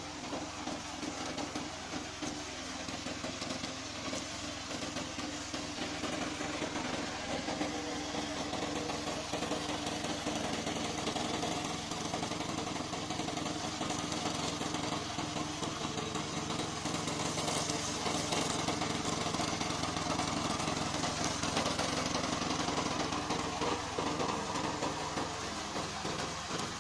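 Gasoline engine of a remote-control slope mower running steadily, a little louder through the middle.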